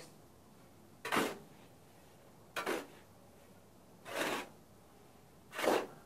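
A steel shovel scraping across a concrete floor as it scoops and turns a dry sand-and-cement mix, four strokes about a second and a half apart.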